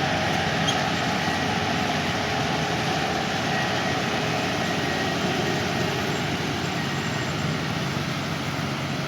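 Engine of a KSA GreenGold 220 track combine harvester running steadily.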